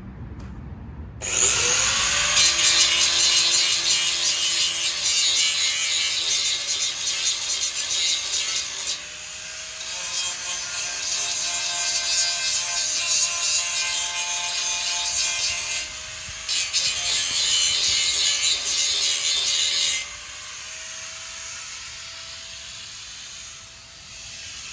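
Electric grinder spinning up with a rising whine, then grinding corroded steel railing posts in long, loud passes with a couple of short breaks. Near the end it runs free off the metal.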